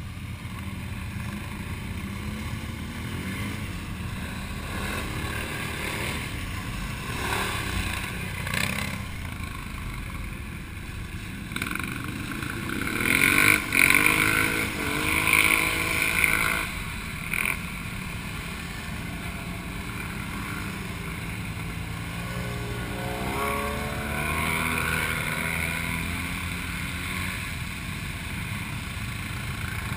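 Quad bike (ATV) engines running, heard from a camera mounted on one of the quads: a steady engine drone, with louder revving from the group of quads about halfway through and rising revs again later.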